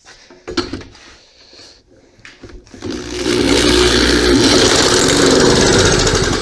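Push lawn mower's small engine being pull-started on a shot of carb cleaner: a few short recoil-starter pulls, then it catches about three seconds in and runs loud and steady.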